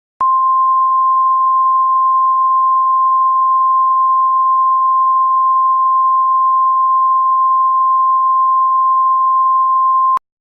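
Emergency Alert System attention signal: a single steady tone near 1 kHz that starts abruptly and cuts off after about ten seconds, with a faint click at each end.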